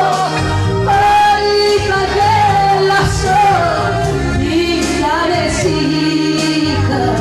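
A woman singing a Greek song live into a microphone, backed by a band, holding long notes over bass, with cymbal hits.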